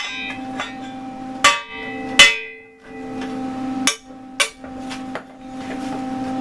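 Hammer blows on metal, about seven strikes at uneven intervals, the loudest two a little over a second in and about two seconds in, each leaving a brief metallic ring. A steady low hum runs underneath.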